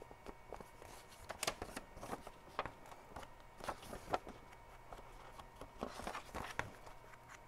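Paper being handled: rustling with irregular soft taps and scuffs as a foam ink-blending tool is dabbed along the edges of a paper envelope.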